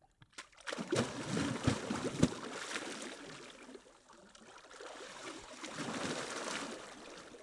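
Lake water splashing and sloshing around an angler's waders and hands in the shallow margin as a carp is released. The loudest splashes come in the first couple of seconds, then there is a quieter lull, and a second run of splashing builds about six seconds in as he kicks and throws up spray.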